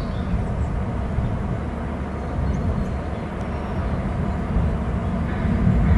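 Steady low rumble of wind and breaking surf on an outdoor microphone.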